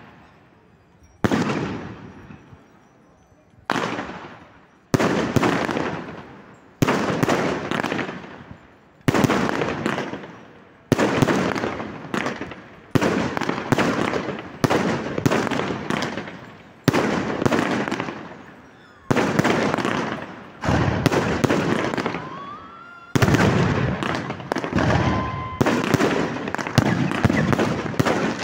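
Aerial firework shells bursting, about one bang a second, each trailing off in a crackling smear over a second or so. The bursts come thicker and overlap toward the end, and a brief rising whistle is heard about three-quarters through.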